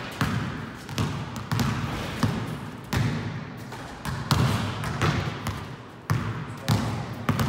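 Basketballs bouncing on a hard indoor court floor: a dozen or more irregular thuds, with a short echo after each.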